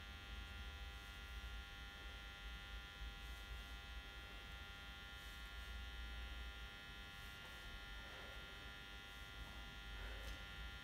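Steady electrical buzzing hum made of many even tones over a low rumble, with a few faint soft sounds near the end.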